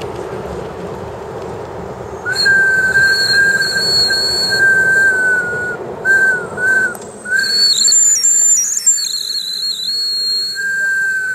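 Live-steam model of a Bavarian S 2/6 locomotive running in, then its steam whistle blowing a long, steady, high blast starting about two seconds in. Midway the blast breaks into a few short toots, then the whistle sounds long again near the end.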